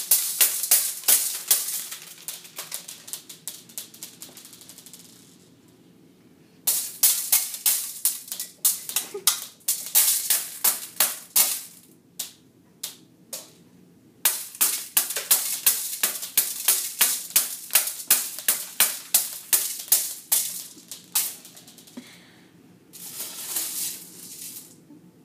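Beads clattering in a metal colander as a toddler drums and stirs them by hand: runs of quick sharp rattling clicks, about four a second, broken by short pauses, with a brief continuous rattle near the end.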